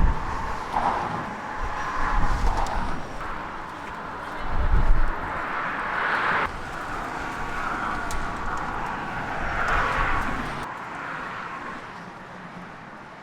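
Outdoor traffic noise, with vehicles passing in swells that rise and fade over a few seconds. Low rumbles of wind on the microphone come about two and five seconds in.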